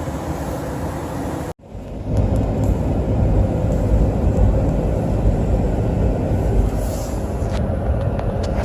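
Steady air rush of a running gas furnace's blower, cut off abruptly about a second and a half in. It is followed by a louder, steady low rumble like a vehicle driving on the road, with a few faint clicks.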